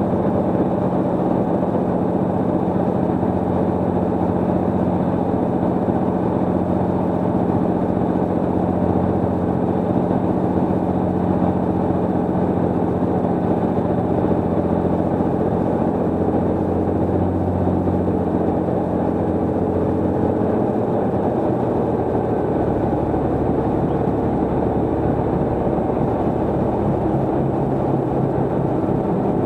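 Cirrus SR22's six-cylinder piston engine and propeller droning steadily, heard from the cockpit on short final. About two-thirds of the way through the drone changes and turns rougher as the aircraft lands and rolls out on the runway.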